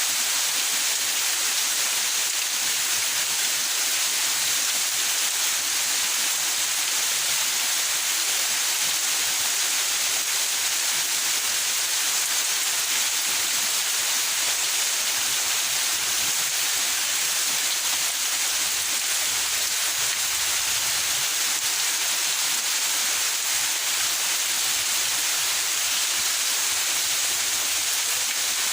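Steady rain falling in a backyard: an even, unbroken hiss.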